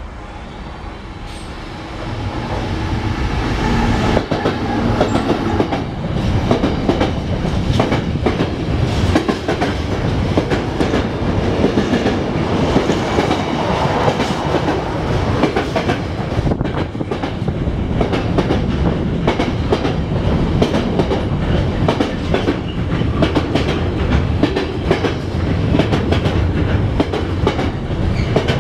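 Freightliner Class 70 diesel locomotive hauling a long container train past, growing louder over the first few seconds as it approaches. Then a steady run of container wagons rolls by with a continuous clickety-clack of wheels over the rail joints.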